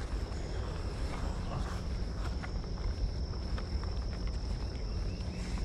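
Insects chirring in one steady high-pitched drone, over a constant low rumble, with faint scattered footsteps on grass and pavement.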